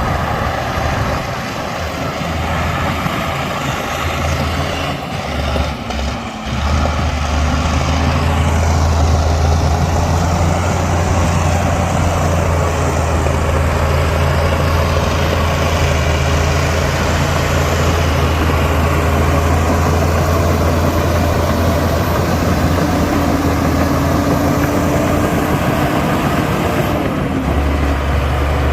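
Heavy diesel engine of earthmoving machinery running steadily as a low drone, dipping briefly about five seconds in.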